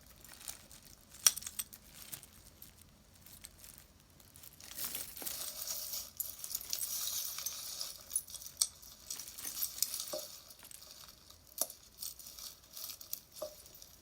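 Jewelry being handled: small metal and bead pieces clicking and clinking against each other, with a sharp click about a second in and a stretch of crinkling packaging around the middle.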